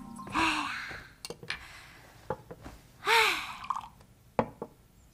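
Two short wordless vocal sounds: a breathy sigh-like sound about half a second in, and a rising-then-falling exclamation about three seconds in. A few soft knocks fall between them.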